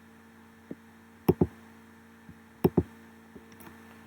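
Clicking at a computer, mouse and keys: two loud double clicks about a second and a half apart, with a few fainter single clicks between them. A faint steady electrical hum runs underneath.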